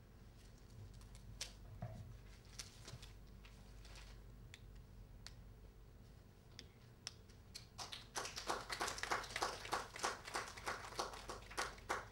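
Faint rustling and crinkling of paper as a gift wrapping is pulled off a book, then, about eight seconds in, a small audience applauding.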